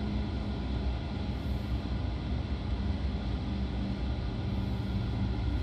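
Steady running noise inside a moving SNCB I10 passenger coach: wheels rolling on the rails, with a low hum.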